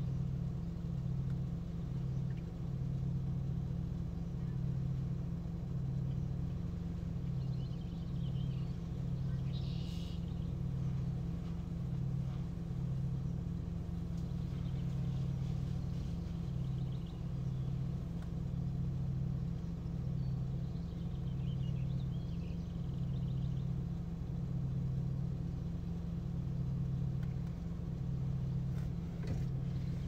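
A steady low hum that throbs roughly once a second, with faint high chirps now and then.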